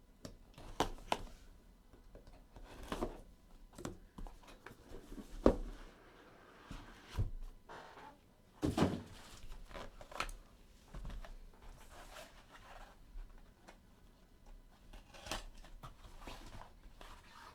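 Handling noise from opening a trading-card box and its packaging: scattered knocks, clicks and brief rustles, the strongest knocks about five and nine seconds in.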